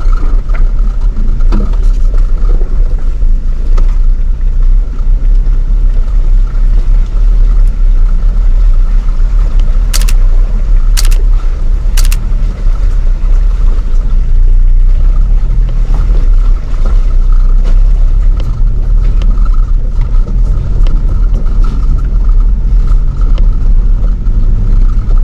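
4x4 off-road vehicle running slowly along a trail: a loud, steady low rumble, with three short sharp knocks about a second apart near the middle.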